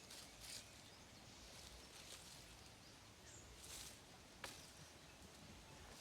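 Near silence: faint outdoor ambience with a few soft rustles and one sharp click about four and a half seconds in.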